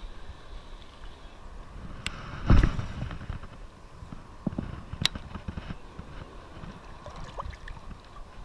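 Shallow surf water sloshing around a wading angler, with a loud thump about two and a half seconds in and a few sharp clicks.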